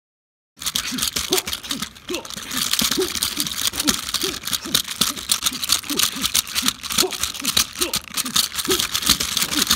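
Plastic Rock 'em Sock 'em Robots boxing toys clacking and rattling as they trade punches: a fast, dense run of plastic clicks with short dull knocks several times a second, starting abruptly about half a second in.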